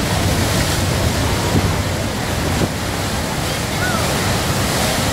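Steady rushing roar of a huge waterfall heard at close range near its base, with churning water and wind buffeting the microphone.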